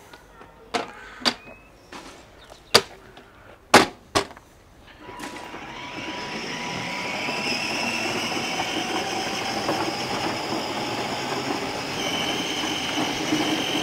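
Several sharp plastic clicks and knocks as the toy truck's container door is handled. Then, from about five seconds in, a steady rumble with a high whine swells up and holds.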